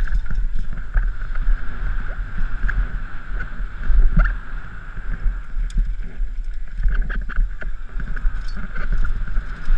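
Wind buffeting the microphone of a helmet-mounted camera on a downhill mountain bike moving fast, with the bike rattling over a dirt and rock trail and many short sharp knocks from bumps.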